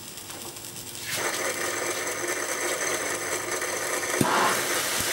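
Lit smoke-bomb fuse fizzing and crackling, starting about a second in and settling into a steady hiss, with one sharp crack about four seconds in.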